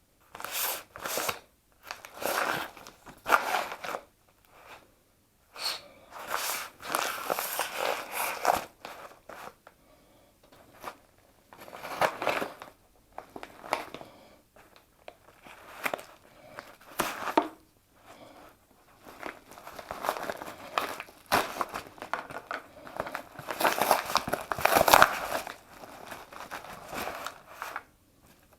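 Parcel packaging being handled and torn open: crinkling, crumpling and tearing in irregular bursts with short pauses between them.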